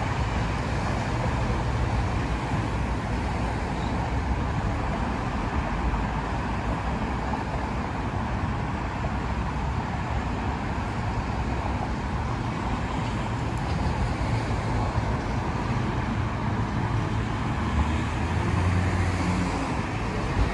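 Steady road traffic noise around a street-median tram stop, with a Yarra Trams tram drawing in to the platform near the end, its low hum growing louder as it arrives.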